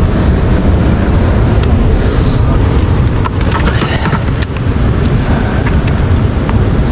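Loud rumble of wind buffeting the microphone over the wash of surf on the shore, with a few sharp clicks through the middle and once near the end.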